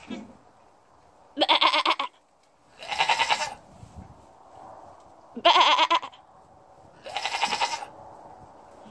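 Goats bleating: four loud, quavering bleats of about half a second each, spaced a second or more apart.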